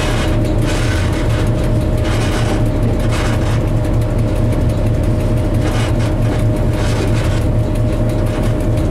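Diesel locomotive's engine running steadily under way, heard from inside the cab: a constant low hum with a steady whine above it. The rush of the wheels on the track swells and fades every second or two.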